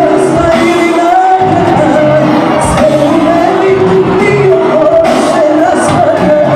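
Live pop-folk band with drums, electric guitar and keyboards behind a lead singer, played loud in a large club hall and recorded from within the crowd.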